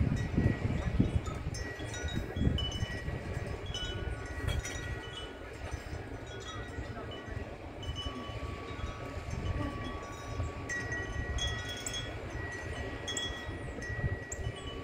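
Wind chimes ringing: several high, overlapping tones that linger and fade, over a low wind rumble on the microphone.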